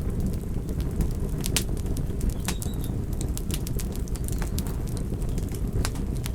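Wood fire crackling: a steady low rumble of burning with irregular sharp pops and snaps.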